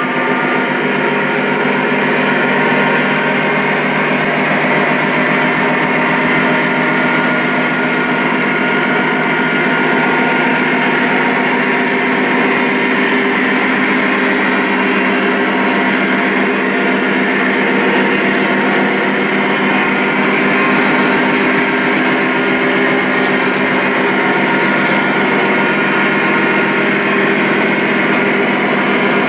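Lionel O-gauge model freight train running steadily on three-rail track: cars rolling by with wheel noise, over the steady droning diesel engine sound of the Lionel Legacy Union Pacific ES44 locomotives.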